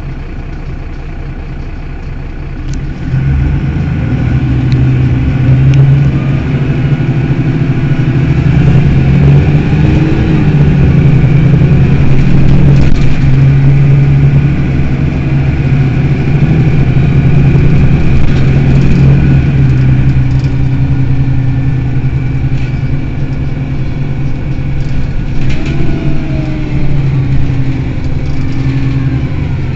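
Mercedes-Benz Citaro city bus engine idling, then about three seconds in it gets much louder as the bus accelerates. Its note rises and falls several times as it pulls through the gears, and it eases off near the end.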